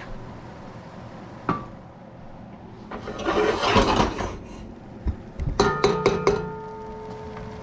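Metal cookware clanking as the roux pot is handled: a single clink about a second and a half in and a rough noisy stretch for about a second, then a quick run of sharp clanks that leave a ringing tone.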